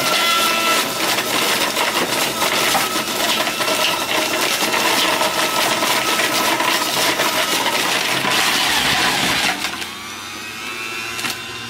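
Cuisinart 1000-watt juice extractor running while carrots are fed down the chute and shredded: a loud, crunching grind full of crackles. About nine and a half seconds in the crunching stops and the motor runs on more quietly.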